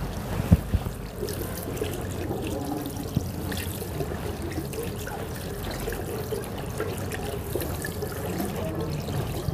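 Tap water running into a washbasin and splashing over hands as soap is rinsed off them, with small irregular splashes.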